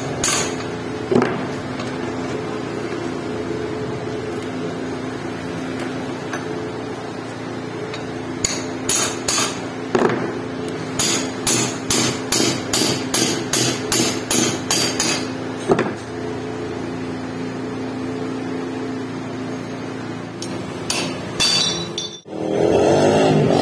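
Hammer striking a steel punch held in the eye of a rusty hatchet head clamped in a bench vise, driving out the remains of the old iron pipe handle. The metal-on-metal blows come in bursts, the longest a steady run of about two a second, over a constant low machine hum.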